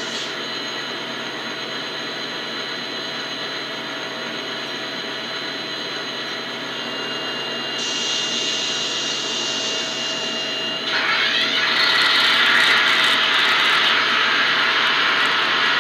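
Diesel locomotive sounds played by the onboard sound decoder and tiny speaker of a Rapido N-scale VIA F40PH-2D model standing still: a steady engine drone with a thin whine. It gets louder about 8 seconds in, then again about 11 seconds in with a burst of hiss that stays.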